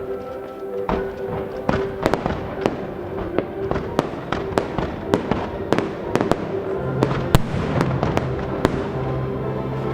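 Fireworks display: a rapid series of sharp bangs and cracks from exploding shells, over classical orchestral music with held notes.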